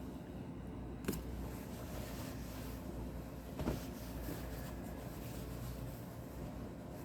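Two brief knocks of objects being handled on a tabletop, about a second in and again a little past the middle, over a low steady hum.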